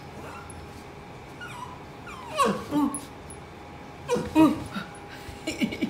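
West Highland White Terrier whining and yipping in excited greeting, in two short bouts of high calls that fall in pitch, about two and four seconds in.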